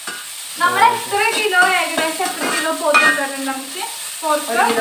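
Sliced onions sizzling as they fry in oil in a metal kadai, stirred and scraped around the pan with a metal spatula.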